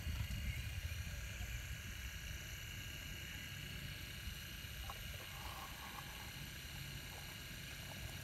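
Radio-controlled hydraulic excavator running, its hydraulic pump giving a steady high whine as the arm swings and lowers the bucket. A low rumble underneath eases after the first few seconds.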